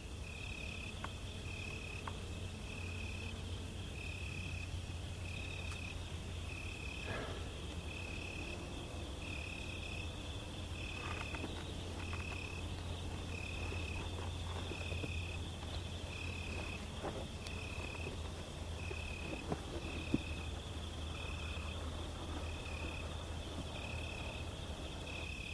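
Crickets chirping in an even rhythm, a little more than one short high chirp a second, over a low steady hum: night-time outdoor ambience.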